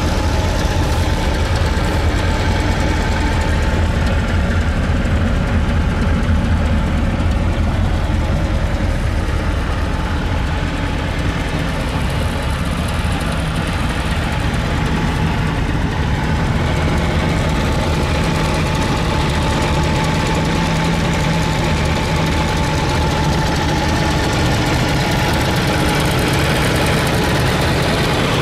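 A 1980 VAZ 2101's 1.2-litre inline-four engine idling steadily.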